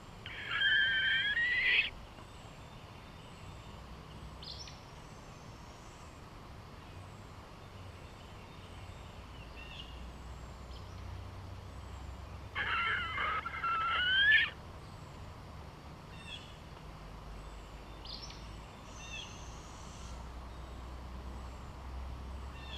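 An owl calling twice, each a harsh, wavering call about one and a half to two seconds long, the two about twelve seconds apart, with fainter short bird calls in between.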